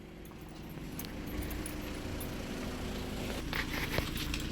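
Car running, its low engine and road rumble building from about a second in, with light clicking and rattling.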